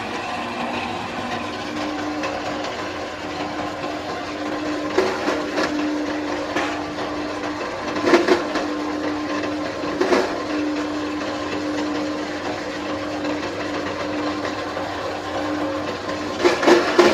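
An electric-driven farm processing machine running steadily with a constant hum, with a few short, louder crunching bursts as material goes through it.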